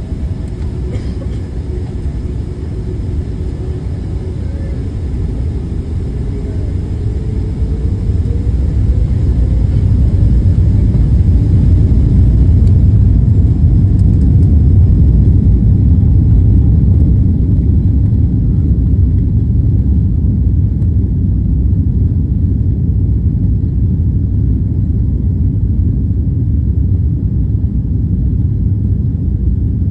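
Jet airliner's engines spooling up for takeoff, heard from inside the cabin: a faint whine rises in pitch over several seconds while the low rumble grows louder, then the rumble holds steady.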